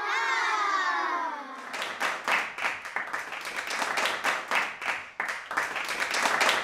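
A wavering pitched tone glides downward for about a second and a half, then gives way to a dense, quick run of sharp hits like clapping.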